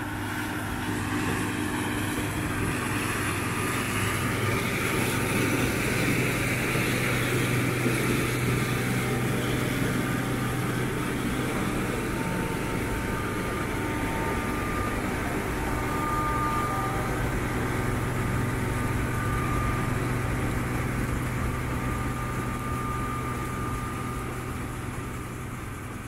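Massey Ferguson 850 combine harvesting corn: its turbocharged Perkins six-cylinder diesel engine and threshing machinery running steadily under load, with faint high whines coming and going. The sound eases off near the end.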